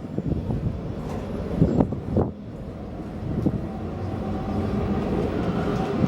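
Steady low mechanical rumble of vehicle noise with a few knocks, growing a little louder about halfway through.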